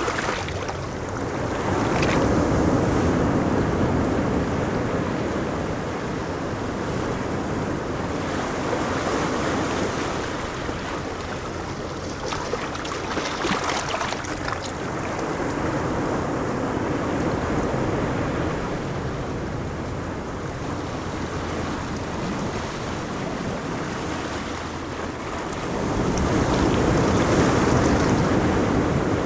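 Ocean waves breaking and washing on a beach, a continuous surf wash that swells louder about two seconds in and again near the end, with some wind on the microphone.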